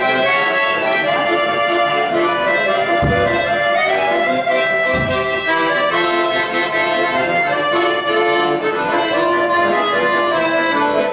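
Instrumental music led by an accordion playing a folk-style tune, loud and steady, with no singing.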